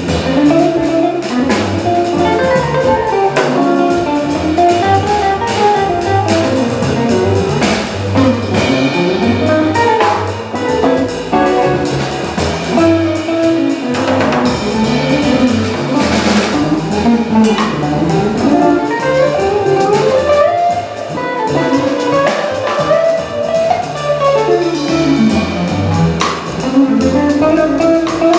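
Jazz trio playing live: an archtop electric guitar plays running single-note melodic lines over plucked upright bass and a drum kit with cymbals.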